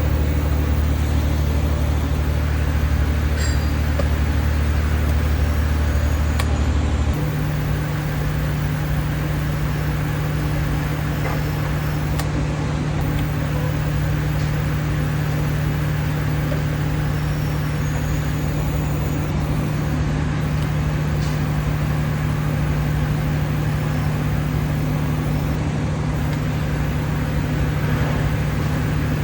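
Cummins 6LTA inline-six turbodiesel running steadily. Its low tone shifts about seven seconds in and then holds steady.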